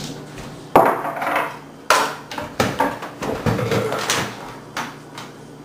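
Wooden kitchen chair pulled out and shifted as someone sits down at a wooden table: several separate knocks and short scrapes.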